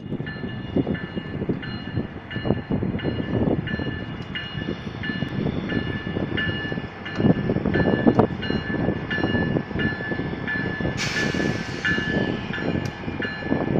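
WCH type 1 electronic railroad crossing bell dinging steadily, just under two strikes a second, over a fluctuating low rumble. A brief hiss rises and fades about eleven seconds in.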